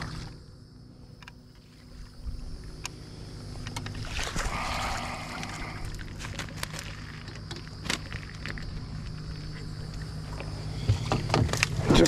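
Sounds on board a small Gheenoe fishing boat: a steady low motor hum, with a brief rushing, splashing noise about four seconds in and scattered light clicks.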